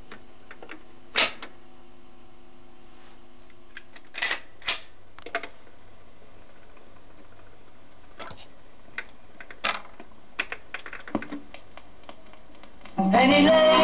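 Fidelity HF45 record player's autochanger cycling: a scattered series of mechanical clicks and clunks as the tone arm swings in over the record and sets down. About a second before the end, music with guitar and singing starts playing from the record.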